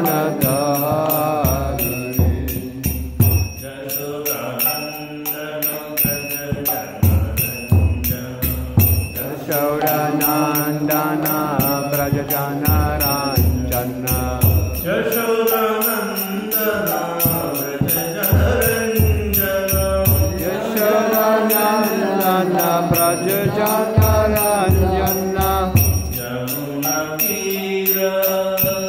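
A man singing a slow Vaishnava devotional chant into a microphone, with small hand cymbals (kartals) ringing in a steady beat and groups of low drum beats underneath.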